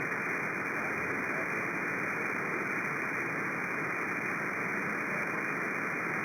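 CB radio receiver on channel 37 single sideband giving a steady static hiss between transmissions, with no station coming through.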